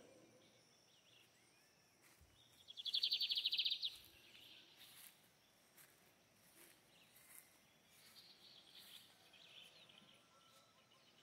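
Birdsong: one loud, rapid trill about three seconds in, lasting about a second, then fainter high calls near the end.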